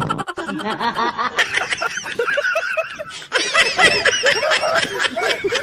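People giggling and laughing in quick, overlapping peals; it dips briefly about three seconds in, then comes back louder.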